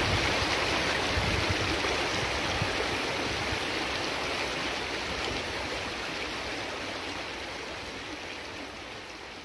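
Creek water flowing in a steady rush that slowly fades away.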